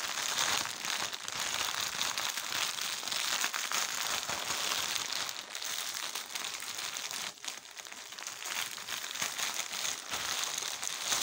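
Thin plastic bag crinkling and rustling continuously as it is handled and items are worked out of it, easing off briefly about seven seconds in.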